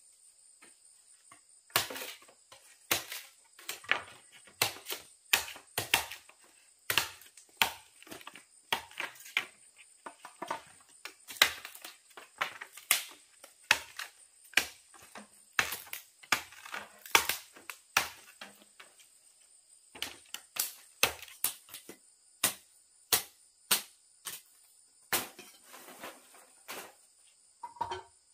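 Irregular sharp chopping strikes, about one or two a second with a brief pause partway through, over a steady chirring of insects.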